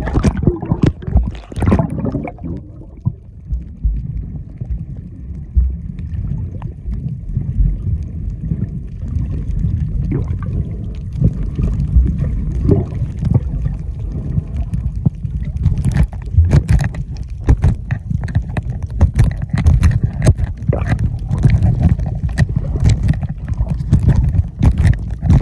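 Underwater sound heard through a waterproof camera housing: a muffled, steady low rumble of moving water. Sharp clicks and crackles come in about ten seconds in and grow more frequent in the second half.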